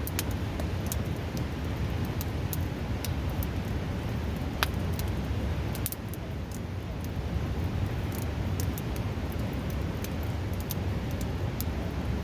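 Wood fire crackling, with many sharp pops and one louder snap about four and a half seconds in, over the steady loud rush of a river.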